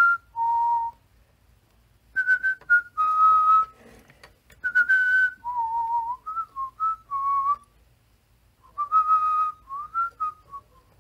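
A person whistling a tune by mouth: short phrases of held and sliding notes, with pauses between phrases.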